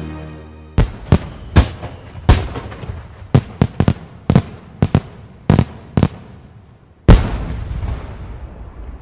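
Fireworks exploding: a dozen or so sharp bangs at irregular intervals, each with an echoing tail. The loudest bang comes about seven seconds in, and its rumble dies away slowly.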